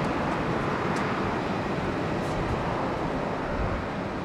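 Airbus A350-900's twin Rolls-Royce Trent XWB turbofans at climb power as the airliner climbs away after takeoff: a steady jet rumble, slowly fading toward the end.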